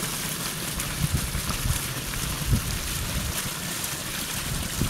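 Water gushing out of a Beaver Proof pond-leveler outlet pipe below a beaver dam, a steady rushing that shows the leveler is draining the pond at full flow. A few short low thumps come through over it.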